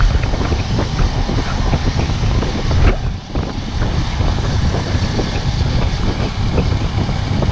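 Wind rushing over the camera microphone on a moving motorcycle, with the motorcycle's engine running underneath.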